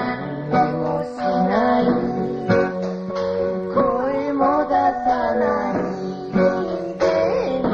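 Song with strummed acoustic guitar under a sung vocal melody whose notes slide up and down.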